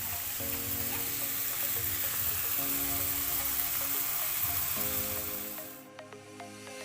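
Food sizzling and frying in a hot pan, a steady hiss that cuts off abruptly about six seconds in, over background music.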